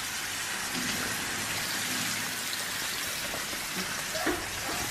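Ribeye steak sizzling steadily as it sears in a hot frying pan, an even spitting hiss.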